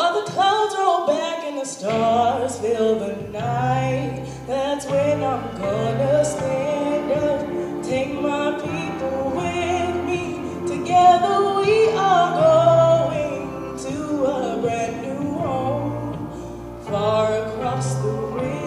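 A woman singing a melody with heavy vibrato, over accompaniment with a low bass line and light percussive ticks.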